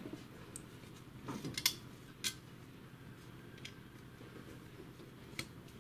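Small screwdriver undoing the tiny screws that hold a laptop's fan and heatsink, giving a few faint, scattered metallic clicks and ticks.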